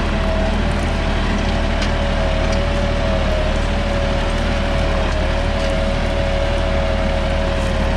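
Massey Ferguson 9500 tractor's diesel engine running steadily under load as it pulls a three-bottom mouldboard plough deep through the soil, with a steady high whine above the engine note.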